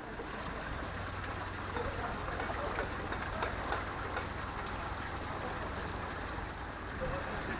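Widebeam boat's engine running steadily under a rushing, splashing water noise, with scattered small ticks.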